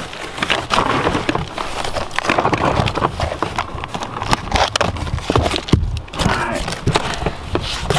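Swiss Army knife blade cutting and tearing through a large cardboard box: rough scraping and ripping of cardboard with irregular knocks and crackles.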